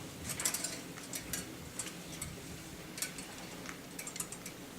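Irregular light clicks and rustling as clothes are handled and fetched, over a faint room hum.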